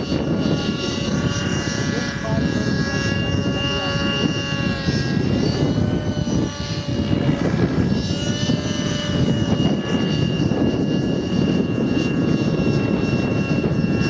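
Align T-Rex 600 nitro RC helicopter's two-stroke glow engine and rotors whining steadily, the pitch wavering slightly as it flies, over a steady rushing noise. The sound dips briefly about six and a half seconds in.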